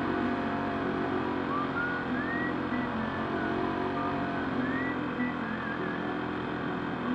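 Car running on the road, heard from inside the cabin: steady engine and road noise, with a few faint high sliding tones over it in the middle stretch.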